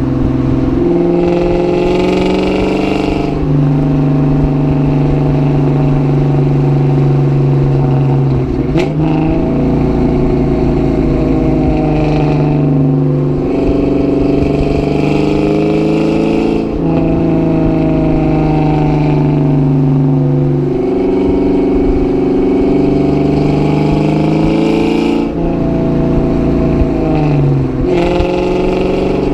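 2004 Ford Mustang GT's 4.6-litre V8 engine running under way, its note climbing and then stepping down again several times through the stretch. A sharp click comes about nine seconds in.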